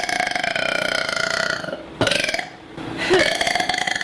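A woman burping: one long, drawn-out burp, then another burp starting about three seconds in.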